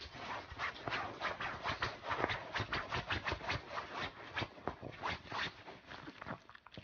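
A pug pawing at a duvet and rubbing its face into it, the fabric rustling and scratching in quick, uneven strokes.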